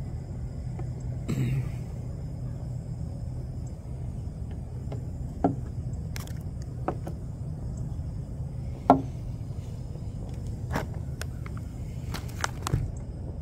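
Short plastic clicks and knocks of AeroPress coffee-maker parts being handled and set down on a wooden picnic table, the sharpest about nine seconds in, over a steady low hum.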